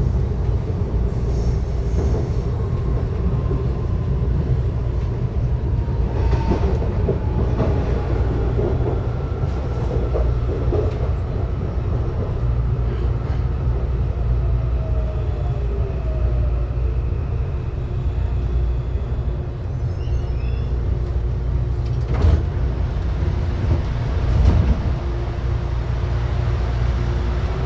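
A CPTM Line 8 electric commuter train running, heard from inside the carriage: a steady low rumble of wheels on rail, with faint whines that slide in pitch. Two sharp knocks come near the end.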